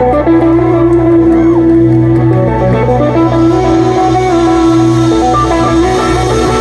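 Live rock band playing loud: electric guitars, electric bass and drum kit, with one long held note running over most of the passage.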